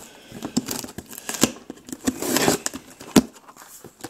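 Packing tape being slit and torn open along the seam of a corrugated cardboard shipping carton, then the flaps pulled open: scratchy tearing and rustling with scattered cardboard knocks, and one sharp click just after three seconds in.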